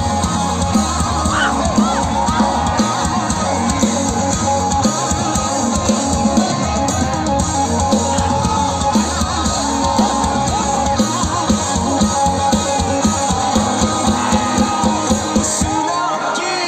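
Hindi rock band playing live through a festival PA, heard from the crowd: electric guitars over a steady drum beat. The bass and drums drop out about a second before the end.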